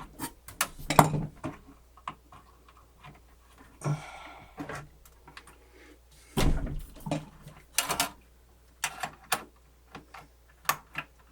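Irregular small clicks, taps and knocks of hands working at a plastic wire connector inside a cassette deck, with a brief scrape about four seconds in and a louder knock about six and a half seconds in.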